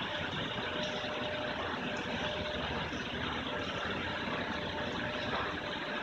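Petit Accutrac 360-i touchless in-bay car wash spraying a car with high-pressure water: a steady hiss of spray over the hum of the wash machinery.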